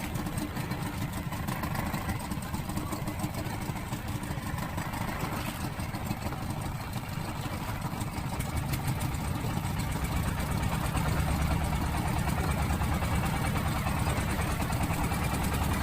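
Boat engine running steadily, getting louder and heavier from about halfway through.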